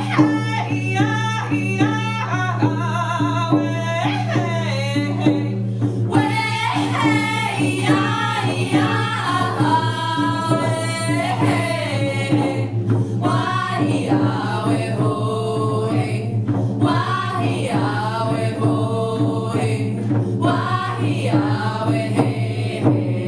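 Women's group singing an Indigenous healing song, with a steady beat struck on hand-held frame drums, over a low steady hum.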